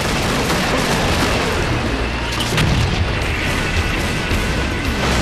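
Animated battle sound effects: gunfire and heavy booms in a dense, continuous barrage, mixed with a dramatic music score.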